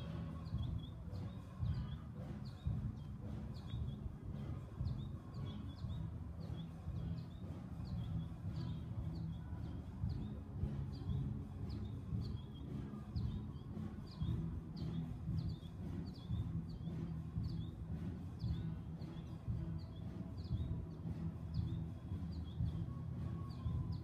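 Outdoor ambience: a steady low rumble, with a short high chirp repeating evenly about one and a half times a second.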